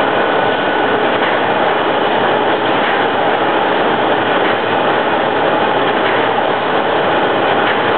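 Vibratory spreader running, its load of small pellets pouring over the comb-tooth outlet onto a slatted conveyor: a steady, even rattle and hiss of machine noise.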